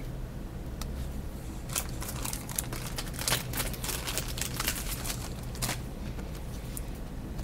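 Faint rustling and scattered light clicks of trading cards being handled and set down on a wooden table, over a low steady hum.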